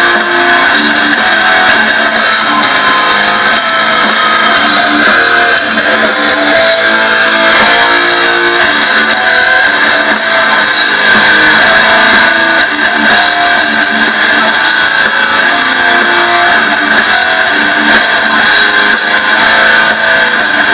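Death metal band playing live: electric guitars riffing over drums and cymbals, continuous and very loud. It is recorded from the crowd, so the sound is thin, with almost no bass.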